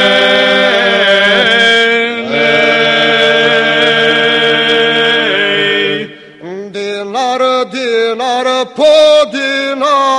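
Male a cappella folk vocal group of four voices singing in close harmony: a long chord held for several seconds, a brief break about six seconds in, then the next phrase in shorter notes with sliding pitches.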